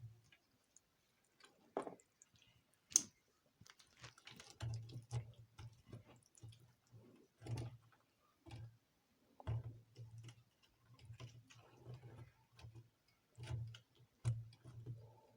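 Close-miked eating sounds: a person chewing water rice (pakhala) and vegetables, with many small wet mouth clicks and smacks, a sharp click about three seconds in, and repeated soft low chewing thumps.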